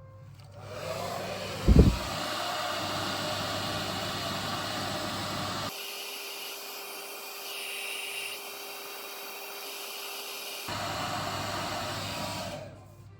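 Electric hair clipper running with a steady motor hum, which stops near the end. There is one sharp thump about two seconds in.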